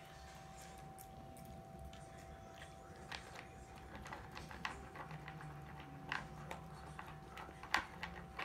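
A small dog eating dry kibble from a plastic bowl: irregular crisp crunches and clicks, sparse at first and more frequent in the second half, the loudest near the end, over a faint steady hum.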